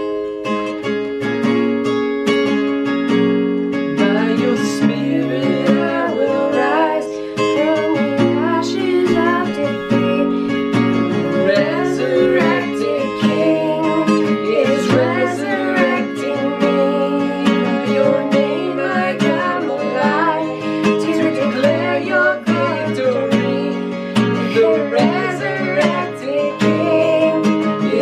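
Acoustic guitar strummed in chords, with a man and a woman singing along from about four seconds in.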